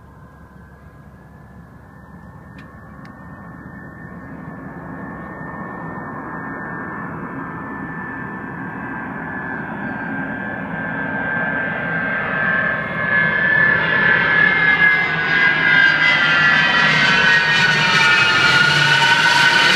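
Lockheed C-5 Galaxy's four turbofan engines on a low approach with the landing gear down, growing steadily from faint to very loud, a high whine over the rumble. Near the end the whine bends lower as the jet passes close overhead.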